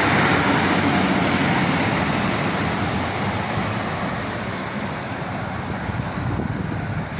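Class 156 Sprinter diesel multiple unit pulling away, its underfloor diesel engines and wheels on the rails fading steadily as it recedes.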